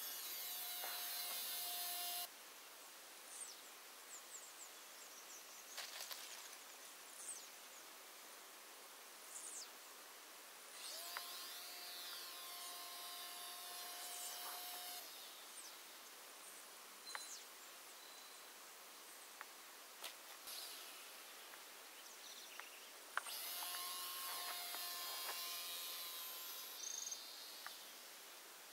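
Faint, high-pitched whine of a small electric RC plane's motor and propeller (a WLtoys F949 Cessna 182 replica), swelling and fading as it passes three times: at the start, about eleven seconds in, and near the end. Between passes there is only faint hiss with a few ticks.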